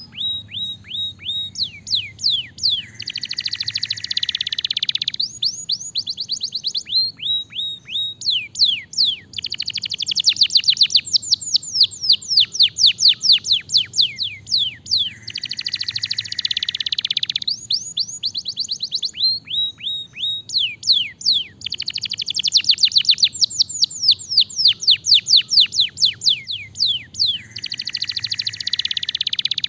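Domestic canary singing a long, continuous song: fast runs of sharply falling whistled notes alternating with dense, buzzy trills, the phrases coming round every few seconds. The trills are at their loudest about a third of the way in and again past the middle.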